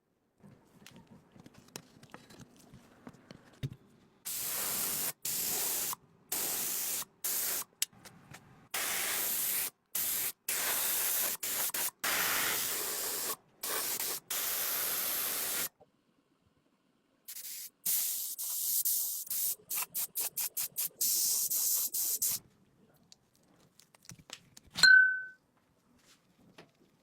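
Hissing bursts of spray or compressed air, switched on and off again and again, each lasting about half a second to a couple of seconds, then a quick run of short spurts. Near the end comes one brief, loud, high-pitched squeak.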